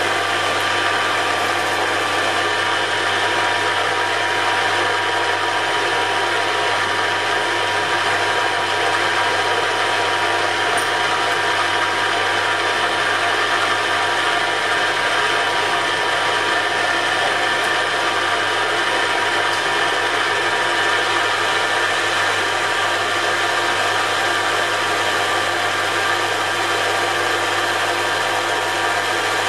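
Metal lathe running steadily while a carbide tool turns a steel drill chuck arbour; a constant machine hum and whine with the cutting noise on top.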